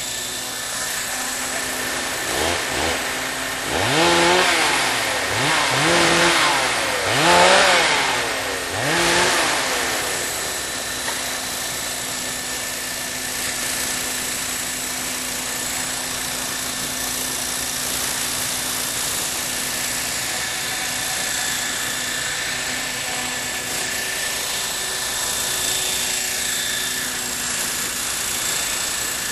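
Radio-controlled model helicopter flying, its motor and rotors giving a steady whine. Between about 2 and 10 seconds in, the pitch swoops up and down five or six times, then settles.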